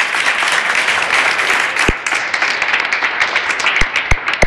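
A group of students clapping hands in steady, dense applause, welcoming a guest speaker up to speak, with a few dull thumps among the claps.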